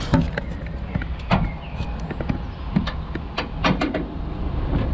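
A run of sharp clicks and light knocks at uneven spacing, from hands working around an open van engine bay, over a steady low rumble.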